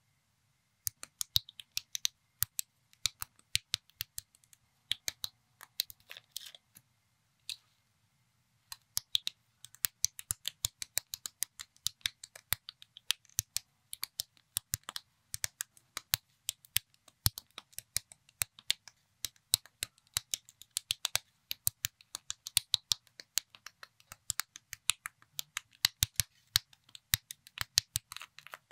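Unofficial Lego-compatible plastic bricks clicking and snapping together as a small model is assembled by hand: sharp clicks several times a second, with a short pause about eight seconds in.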